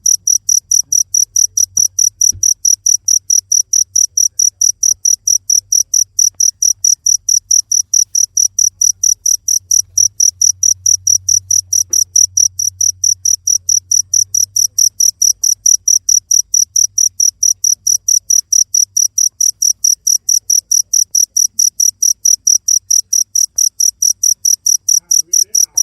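Cricket chirping: a loud, high-pitched chirp repeated in a steady, even rhythm of several chirps a second.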